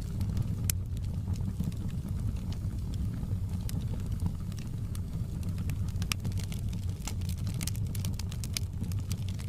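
Wood fire burning in a fireplace: a steady low rumble of the flames with frequent sharp crackles and pops, coming faster in the second half.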